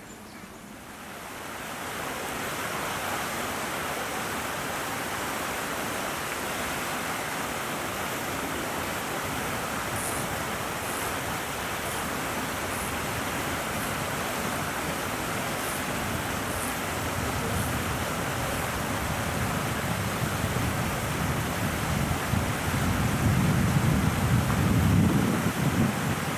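Wind on the microphone: a steady rushing noise, with low buffeting gusts that grow stronger near the end.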